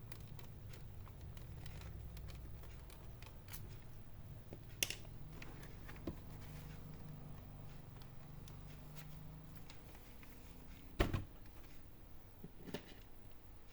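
Light clicks and knocks from handling a laptop and its hinge screws during reassembly, with a sharper knock about five seconds in and the loudest one about eleven seconds in. A low steady hum runs underneath and fades out about ten seconds in.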